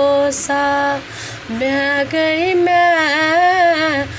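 A woman singing a devotional folk song to the Mother goddess, unaccompanied, on long held notes whose pitch wavers, with a short breath pause about a second in.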